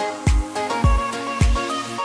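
Background music with a steady beat: a low kick drum about twice a second under a melody. The drum drops out near the end.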